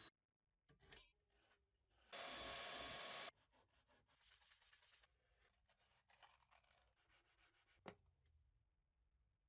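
Woodworking on wood pieces: a steady noisy burst lasting about a second, then several seconds of rubbing or sanding on wood, with a single sharp tap near the end.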